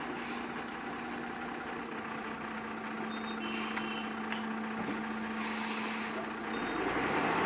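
Heavy truck engine running steadily, with a steady hum that stops about six and a half seconds in as the vehicle noise grows louder.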